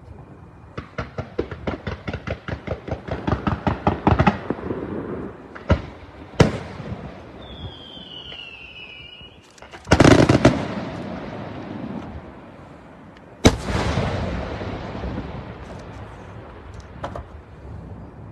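Maxima Fireworks aerial display: a rapid string of bangs, about seven a second, for three or four seconds, then single shell bursts. The loudest burst comes about ten seconds in and another at about thirteen and a half seconds, each trailing off in a long echoing rumble. A high falling whistle is heard between them.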